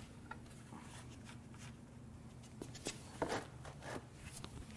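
Quiet shop room tone with a steady low hum, and a few faint clicks and knocks in the second half as a hand wrench works on a bare engine block.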